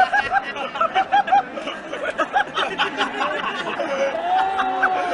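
Cricket spectators in the stands close by, shouting and laughing, many short overlapping calls, with one long held shout near the end.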